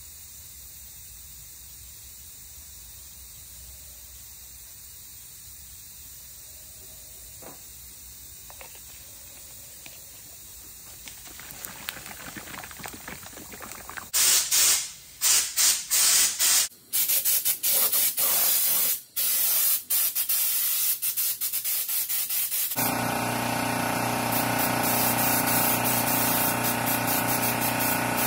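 Air-powered paint spray gun hissing in short on-off bursts about halfway in, then spraying steadily with a steady hum underneath.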